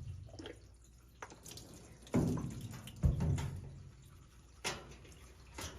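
Wet handling sounds at a dog bathtub: water dripping and sloshing as shampoo is worked into a dog's coat by hand, with two dull knocks about two and three seconds in.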